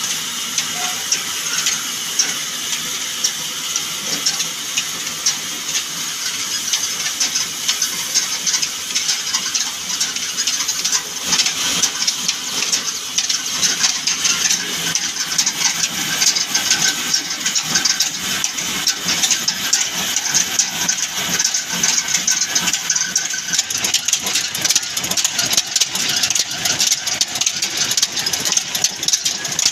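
Belt-driven band saw cutting through a log, its rasping noise mixed with the steady running of the old black diesel engine that drives it through a long flat belt and pulleys. The sound turns rougher and more uneven from about halfway through.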